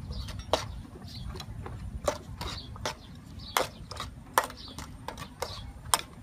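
Metal ladle scraping and knocking against a steel wok while stirring a sauce, in irregular sharp clicks every half second to a second, over a low steady rumble.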